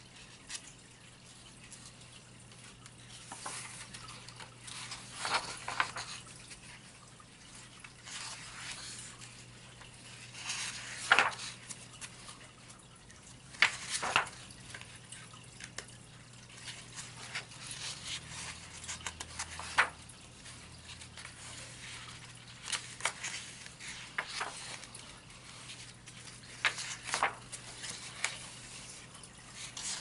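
Paper pages of a softcover colouring book being turned and smoothed by hand: short rustling, sliding swishes every few seconds, over a faint steady low hum.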